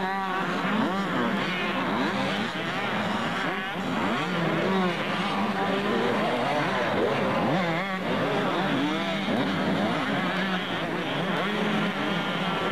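Several motocross motorcycle engines revving up and down as the bikes climb and jump the dirt track, their pitch rising and falling over and over.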